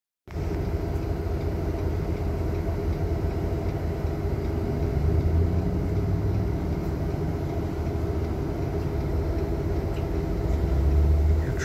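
Idling bus engine heard from inside the cabin: a steady low rumble that swells about five seconds in and again near the end.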